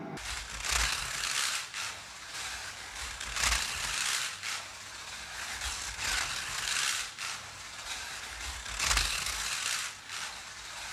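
Scalextric slot car running around the track, its small electric motor and rail pickups whirring and swelling loud each time it passes close, then falling back, about every second or two.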